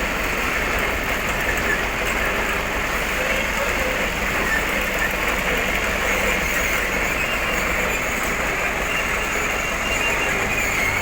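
Tow truck running on the road: a steady, unbroken engine and road noise.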